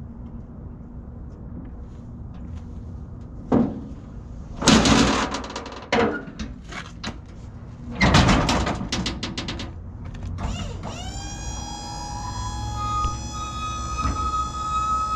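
Steel diamond-plate liftgate platform clanking and banging as it is folded up by hand, several loud metal bangs. About ten seconds in, the liftgate's electric hydraulic pump motor starts with a rising whine and runs steadily, raising the folded gate.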